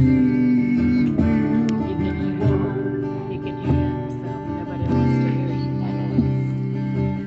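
Strummed acoustic guitar playing an instrumental passage of a gospel song, with a small hand drum struck about once a second.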